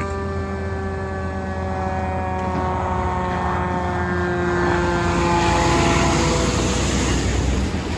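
Aerial snorkel fire truck's engine drones as the truck drives close past, growing louder to a peak about six seconds in. Its pitch sinks slowly, and a rush of engine and road noise comes as it passes nearest.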